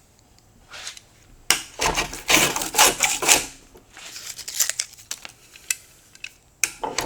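Low-angle block plane with its blade set for a heavy cut, rasping through wood in several quick strokes from about a second and a half in, each peeling off a thick shaving. Lighter scraping follows, with one more stroke near the end.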